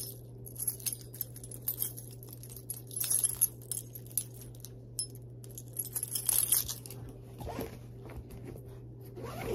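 A bunch of keys on a keyring with keychains jangling and clinking as it is handled, in short irregular bursts, over a steady low hum.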